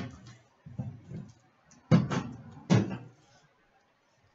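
Handling noises as a shrink-wrapped trading card box is cut open and picked up: some light scraping and rustling, then two sharp knocks about two seconds in, less than a second apart.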